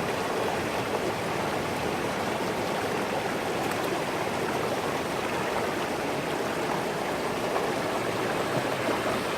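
Stream water babbling over rocks, a steady, unbroken rush.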